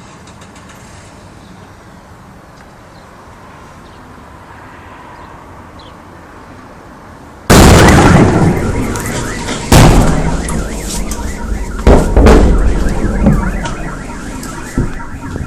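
Shock wave from the Chelyabinsk meteor's airburst arriving: after a steady low background hum, a sudden very loud boom about halfway through, then two more booms about two and four seconds later, with rumbling that slowly dies away.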